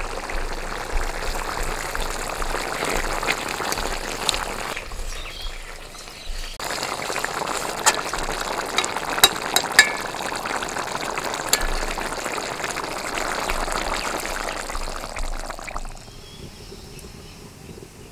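Fish curry boiling in a wok, a steady bubbling hiss with a few sharp clicks of a ladle against the pan. It breaks off briefly about five seconds in and dies down about sixteen seconds in.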